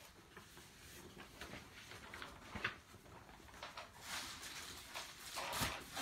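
Bare feet stepping slowly onto plastic packaging material, a faint rustling and crackling that grows louder about four seconds in.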